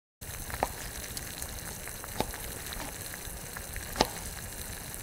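Steady sizzling hiss with a few sharp clicks scattered through it, the loudest about four seconds in.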